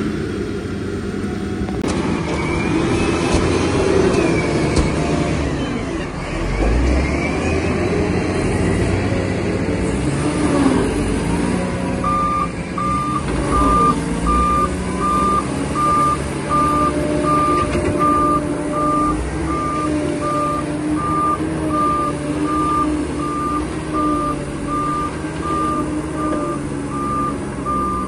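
Heavy diesel earthmoving machinery running under load, its engine pitch rising and falling as it works. About halfway through, a reverse alarm starts beeping steadily, about once a second, over the engine.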